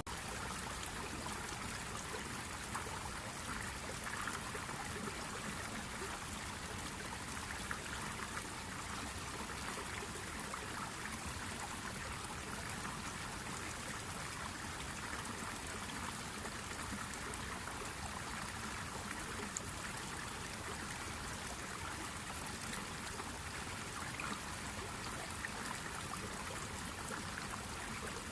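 A stream of water flowing and trickling steadily, with a few faint brief ticks in the running water.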